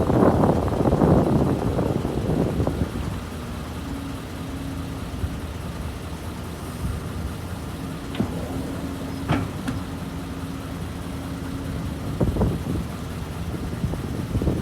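Heavy diesel engine of a truck or excavator, loud for the first few seconds, then settling to a quieter steady idle with a few sharp knocks in the middle.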